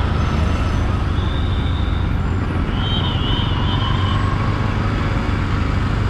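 Motorcycle riding through heavy city traffic: a steady low rumble of engine and road noise, with a faint high warbling tone about three seconds in.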